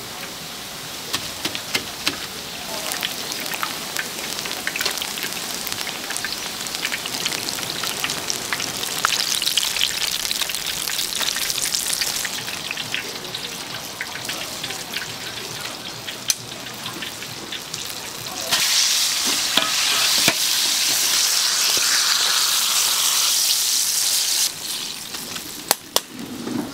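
Battered handmade Korean fried foods (twigim) deep-frying in hot oil, with a steady sizzle and frequent sharp clicks. About two-thirds of the way in, the sizzle turns louder and brighter for about six seconds, then drops back suddenly.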